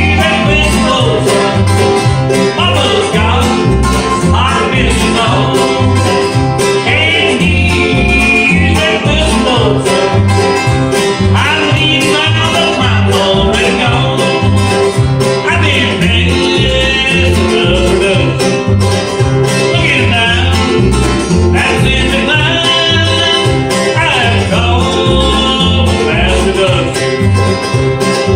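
A bluegrass band plays an instrumental passage: banjo and guitar pick over a steady, bouncing alternating bass line, with sliding melody lines on top.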